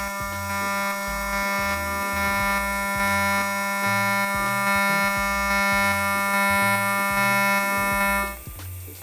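TIG welding arc on a stainless-steel tube, buzzing steadily at about 200 Hz from its high-speed pulse setting of 200 pulses a second, while filler rod is fed in. The arc cuts off suddenly about eight seconds in.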